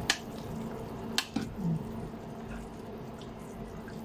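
Soup simmering in a pot on an induction cooker, bubbling over the cooker's steady low hum, with two sharp clinks of a metal utensil against the pan about a second apart.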